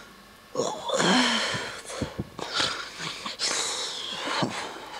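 A person breathing hard and wheezing close to the microphone, in irregular breathy bursts, with a brief low vocal sound about a second in.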